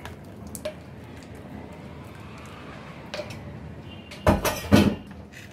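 Two loud clatters of kitchenware against a large aluminium cooking pot, about half a second apart near the end, after a few seconds of steady low background with small clicks.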